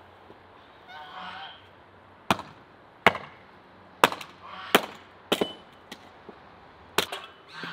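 A hatchet splitting firewood into kindling on a wooden block: six sharp chops at uneven intervals, with honking calls about a second in and between the chops.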